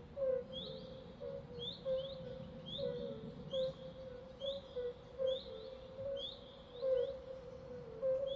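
Swamp chorus of frogs and birds: short rising high chirps repeat about once or twice a second over lower, repeated calls and a steady low murmur.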